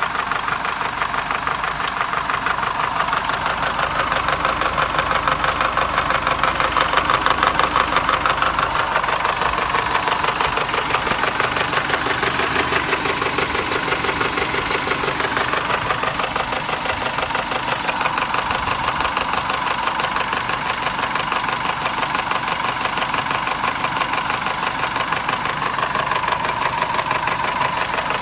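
Nissan YD22DDTi 2.2-litre four-cylinder turbodiesel running steadily, most likely at idle, with a rapid, regular knock. It knocks when hot, at operating temperature, which marks a mechanical fault in the engine.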